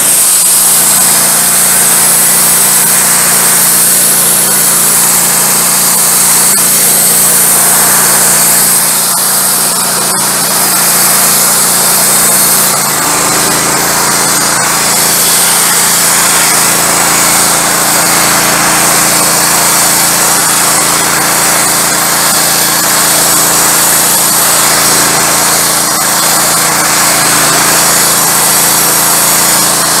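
Wood-Mizer LT15 Go band sawmill running steadily with its blade turning while milling a pine log. About 13 seconds in, the engine's note shifts slightly and a new low tone joins it.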